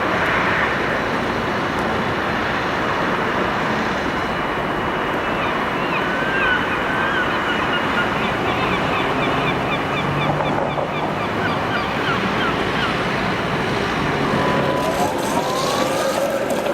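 Steady city street traffic noise, with a row of short high chirps in the middle. Near the end a rising whine sets in as a Tatra T3 tram gets under way.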